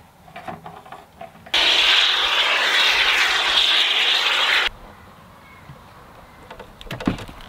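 Aerosol can of expanding foam spraying: a loud, steady hiss that starts about a second and a half in and cuts off suddenly some three seconds later. A short knock near the end.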